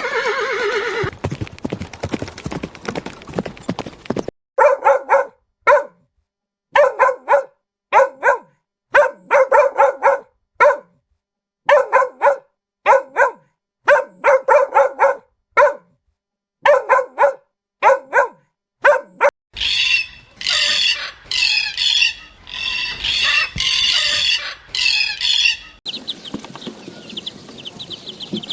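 A run of different animal calls one after another. It opens with a long call that falls in pitch, then comes a long series of short, sharp calls in quick groups, then several seconds of higher, busier calls.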